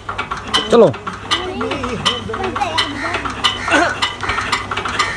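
Small diesel engine being turned over by a belt from a hand-spun handcart wheel, clicking rhythmically about two to three times a second without firing. Men's short shouts join in.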